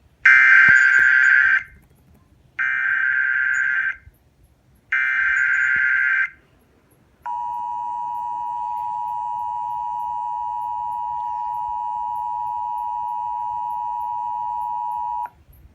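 Emergency Alert System SAME header: three bursts of rapid digital data tones, each about a second and a half long with short gaps between them, followed by the EAS two-tone attention signal (853 and 960 Hz together) held steady for about eight seconds and cut off sharply. Together they announce a Required Weekly Test.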